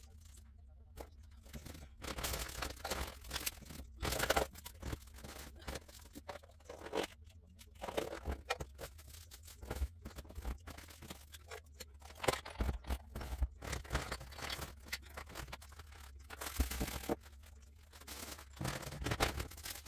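Plastic bags and packaging rustling and crinkling in irregular bursts as items are handled and sorted by hand.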